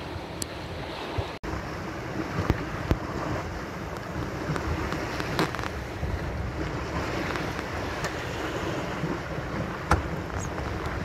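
Wind buffeting the microphone and water rushing and splashing along the hull of a small sailboat under way, with a few short knocks from the boat.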